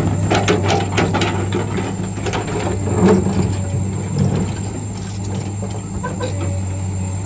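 Diesel engine of a heavy earthmoving machine running steadily, with a cluster of sharp knocks and clatter in the first second or so and a few more near the middle.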